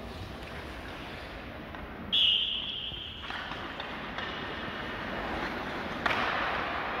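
Steady background noise of an indoor bandy game, with a referee's whistle blown once about two seconds in, one shrill blast of about a second. A sharp knock comes near the end.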